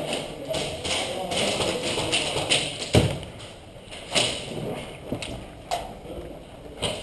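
A few sharp knocks and thuds, the loudest about three seconds in and lighter ones after it, over steady background noise.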